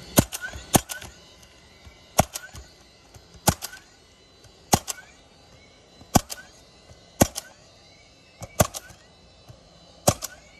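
Roofing nailer driving nails through asphalt shingles: a sharp shot a little over a second apart, about eight in all, each followed by a few lighter clicks.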